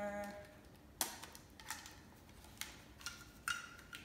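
Plastic spice shaker being opened and shaken over a bowl: a few faint, sharp clicks and taps, spaced roughly half a second to a second apart.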